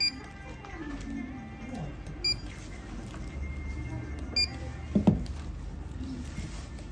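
Handheld barcode scanner beeping three times, about two seconds apart, as packaged items are scanned. A louder double knock comes about five seconds in.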